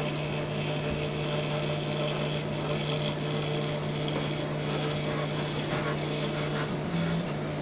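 Prusa i3 MK3 3D printer's stepper motors whining steadily during a mesh bed leveling probe run, the pitch stepping up briefly near the end.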